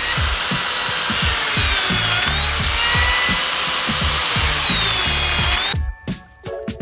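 Lamello plate joiner's motor running at high speed and cutting into a wooden panel, its whine dipping and rising again, then stopping abruptly near the end. Background music with a steady beat plays underneath.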